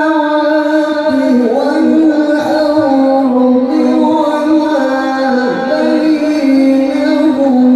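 A qari's melodic Quran recitation: one man's voice through a microphone and loudspeakers, holding long, high, ornamented notes that slide and waver in pitch without a break.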